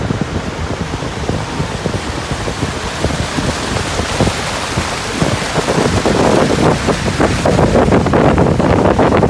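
Wind buffeting the microphone on a moving motor launch, a dense rumble mixed with the rush of water past the hull. It gets louder about six seconds in.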